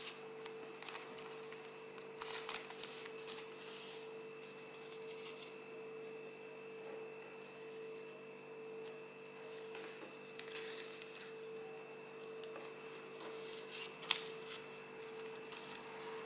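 Origami paper being folded and creased by hand: scattered soft rustles and crisp crackles, the sharpest about fourteen seconds in, over a faint steady hum.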